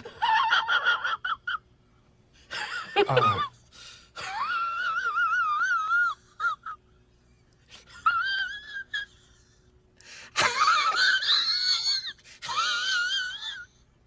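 A man's high-pitched, wheezing laugh in several bursts, some held and wavering in pitch, one about three seconds in sliding steeply down.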